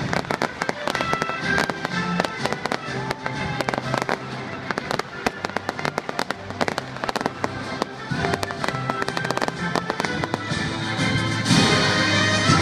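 Fireworks going off in a rapid, dense run of cracks and pops, with music playing underneath. The music swells louder near the end.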